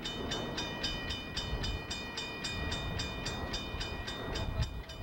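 Chesapeake and Ohio 2765, a 2-8-4 Berkshire steam locomotive, approaching at speed: its exhaust beats about four times a second over a low rumble, with a steady high-pitched tone running through the beats.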